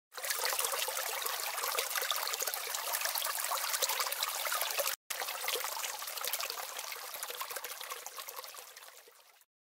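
Water trickling, a dense patter of small drips and splashes; it cuts out for an instant about halfway, then fades away to silence near the end.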